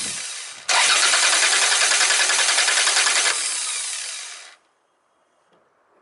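Starter motor cranking the engine in an even, rhythmic whirr, with no firing because the spark plug leads are disconnected. The sound of a healthy starter. It cuts out for an instant just after the start, cranks again for about three seconds, then winds down and stops about four and a half seconds in.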